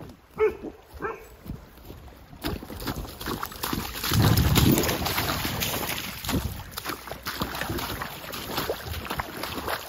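Shallow lake water sloshing and splashing over stones at the shoreline, with wind rumbling on the microphone, loudest about four seconds in.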